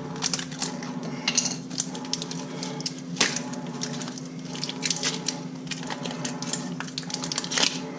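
Small hard parts being handled on a workbench: scattered light clicks, taps and knocks, a sharper one about three seconds in, over a steady low hum.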